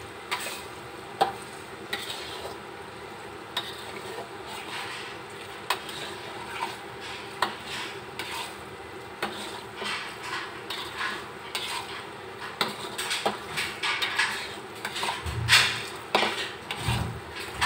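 Metal spatula stirring and scraping in a wok of chili, sugar and oil paste frying over a steady sizzle. Irregular clinks of metal on the wok come more often and louder in the second half.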